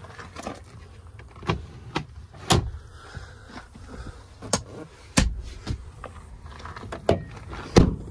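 A run of sharp clicks and knocks, about eight in all, from the doors and centre console of a pickup's cab being opened, handled and shut, with a heavy low knock about five seconds in and the loudest near the end.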